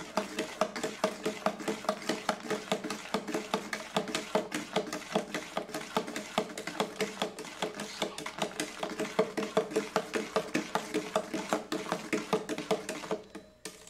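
A spoon stirring the strawberry, banana and milk mix for nieve in its container, knocking against the sides in a steady rhythm of about three or four knocks a second with a light ringing; the stirring stops near the end.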